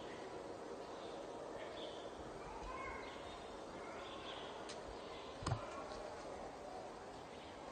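Quiet street ambience: a steady background hiss with faint, scattered bird chirps, and one sharp knock about five and a half seconds in.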